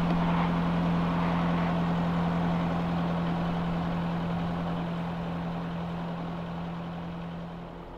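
Sailboat's inboard engine running steadily under way: a constant low drone over a wash of noise, slowly fading, with the drone dropping out just before the end.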